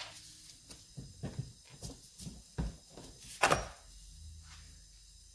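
A string of small clicks and knocks as orange plastic chainsaw brake parts and a screwdriver are handled on a workbench. The loudest knock comes about three and a half seconds in, followed by a faint low hum.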